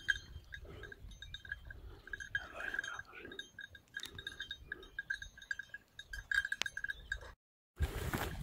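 Small bells jingling in quick, irregular runs of a clear ringing tone. Near the end the sound cuts out briefly and gives way to louder rustling through grass.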